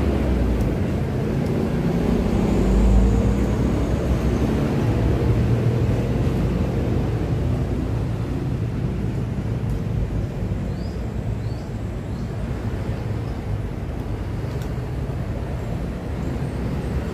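Steady rumble of road traffic on the bridge overhead, louder for a moment about three seconds in.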